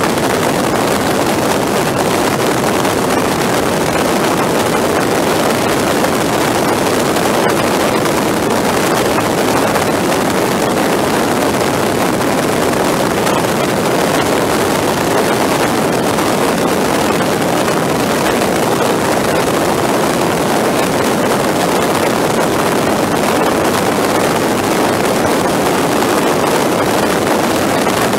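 Steady rush of wind and engine noise from a motorcycle riding at road speed, played back four times faster than real time.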